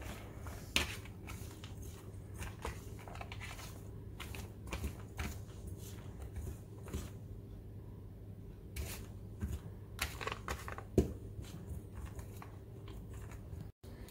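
Kitchen prep handling: scattered light clicks and taps of a fork and knife against paper plates while biscuit dough and diced vegetables are worked, over a steady low hum. The sharpest taps come about a second in and near the end.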